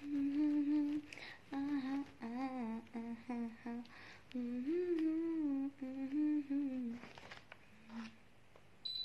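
A woman humming a tune in a string of short held notes that rise and fall, stopping about seven seconds in.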